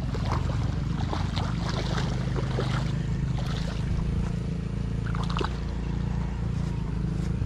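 A hooked fish splashing and flopping in shallow water at the bank, heard as scattered short splashes over a steady low rumble.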